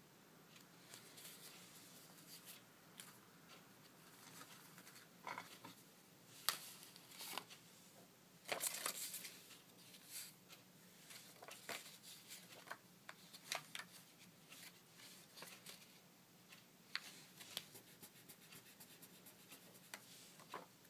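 Faint, scattered rustling and light taps of paper cut-out hearts and card stock being handled and laid down, with a louder rustle about eight and a half seconds in.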